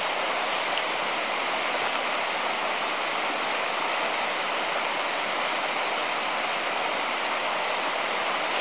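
Shallow, stony river rushing steadily over a riffle of boulders and cobbles.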